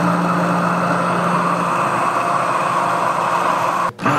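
Stick (immersion) blender motor running steadily in a glass mason jar, blending oil, shallots and spices into a creamy emulsified sauce. It cuts out for a moment near the end and starts again.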